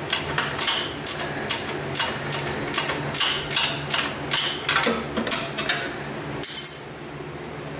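Ratcheting gear wrench clicking in irregular spurts as it backs off a 12 mm bolt, with metal clinks; the clicking stops about seven seconds in.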